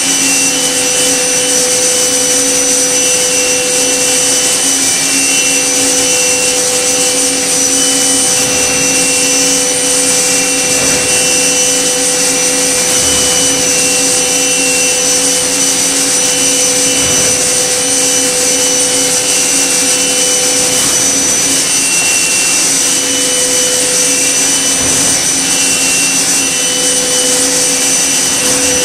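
Okuma MB-5000HII horizontal machining center milling a metal block: a steady, loud spindle whine mixed with cutting and coolant noise. It holds several constant tones, and a higher tone comes and goes every second or so.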